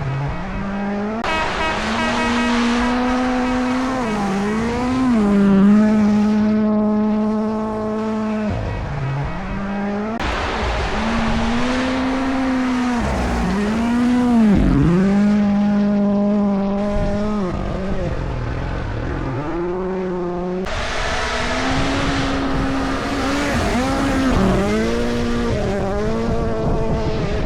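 Rally cars' turbocharged engines at full throttle, revs held high and dipping sharply and recovering again and again through gear changes and lifts. The engine sound changes abruptly twice, as one run gives way to the next.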